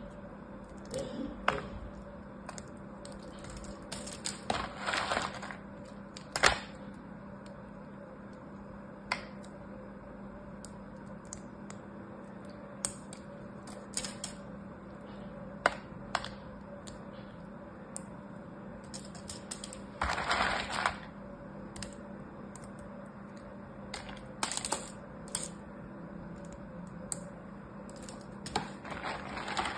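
Thin carved soap shavings handled in a plastic tub: scattered light clicks and taps as the pieces drop and knock together, with a few longer crackling rustles as handfuls are crumbled or shuffled. A faint steady hum runs underneath.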